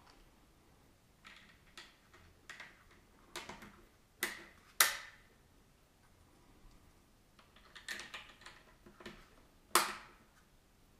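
Autel Evo II drone's plastic body clicking and knocking as it is handled by hand. The sound is a scatter of small taps, with two sharper clicks, one about five seconds in and one near the end.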